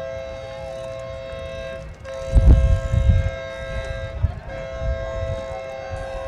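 A two-tone horn sounding in long, steady blasts, breaking off briefly about two seconds in. Low rumbling thuds come just after the break and are the loudest thing heard.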